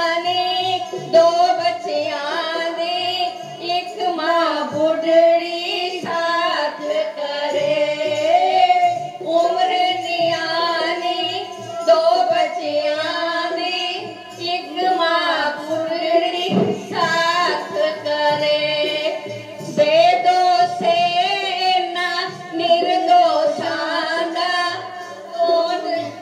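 A group of girls singing a Punjabi Sikh devotional song in unison to dholak drum beats, heard through a TV speaker.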